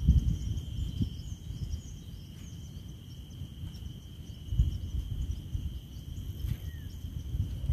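Outdoor ambience: an uneven low rumble of wind on the microphone, under a steady high-pitched insect drone and a few faint bird chirps.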